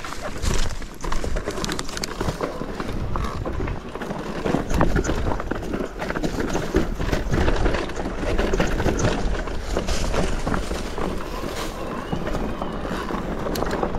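Mountain bike rolling down a rocky trail: tyres crunching and the bike clattering over stones in quick, irregular knocks, over a steady low rumble.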